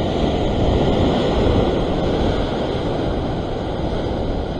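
Rough surf breaking and washing over the rocks in a steady rush, with wind rumbling on the microphone.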